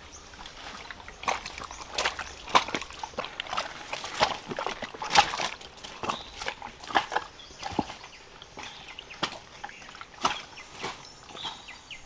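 Footsteps in rubber boots over stones and dry leaves, with plants brushing and rustling: uneven crunches and scuffs, roughly one or two a second.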